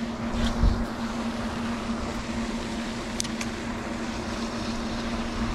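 Steady low hum over a rumble, with a low thump under a second in and a few light clicks as a spinning reel is cast and cranked fast.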